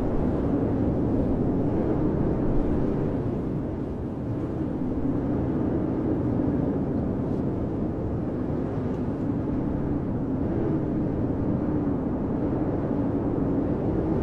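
Blizzard wind blowing as a steady low rush, with a howl that slowly wavers in pitch.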